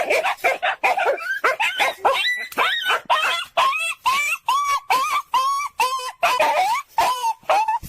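A dog whining and yipping in a rapid string of short pitched calls, about three a second.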